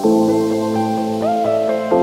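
Background music: soft sustained chords that change about every two seconds, with short rising slides in the upper notes.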